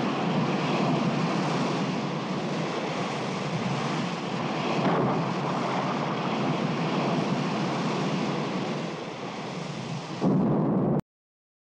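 Storm wind and rough sea in a steady rushing roar. It grows louder for a moment near the end, then cuts off abruptly.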